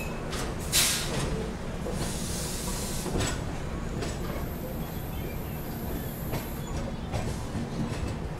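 Indian express train just pulling out of the station: a steady low rumble of the coaches running on the rails, with a brief sharp hiss about a second in and a few knocks.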